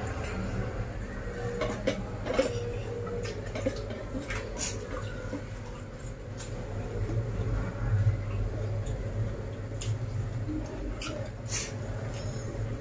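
Scattered light clicks and clinks of plates, bowls and a serving spoon being handled during a meal eaten by hand, over a low steady hum.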